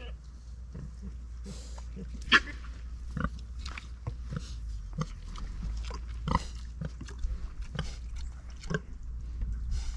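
Pigs grunting off and on in short separate sounds, with one sharp, loud knock about two and a half seconds in.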